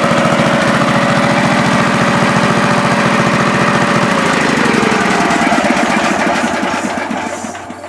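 Briggs & Stratton 531cc engine of a gas-powered air compressor running steadily, then shut off about four seconds in; its firing beat slows and fades as it coasts to a stop near the end.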